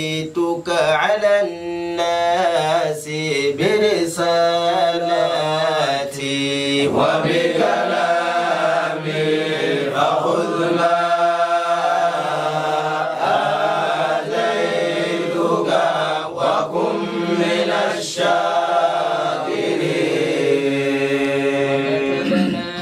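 Several men reciting the Quran together in a slow, melodic chant, holding long drawn-out vowels that bend up and down in pitch.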